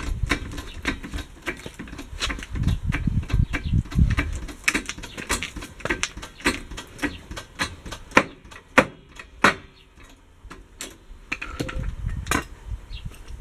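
Metal tools and parts clinking and knocking by hand while changing a car tyre: a rapid, irregular run of sharp clicks, with a few louder knocks about eight to nine and a half seconds in.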